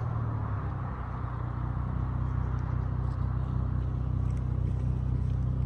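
Dodge Charger SXT with Flowmaster Super 10 mufflers, its exhaust running at a steady low idle.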